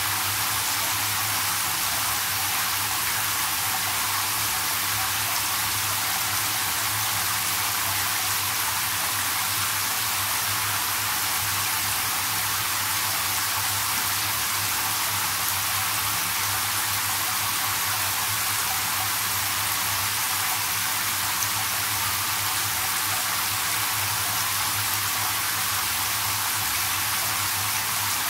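Handheld shower head spraying a steady stream into a partly filled bathtub, water hissing and splashing as the tub fills.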